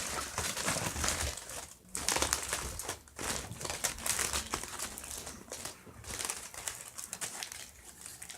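Crinkly material being crumpled and handled, an uneven crackling with short pauses about two and three seconds in.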